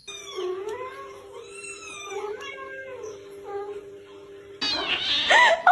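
Domestic cat meowing repeatedly, with much louder, drawn-out meows starting near the end.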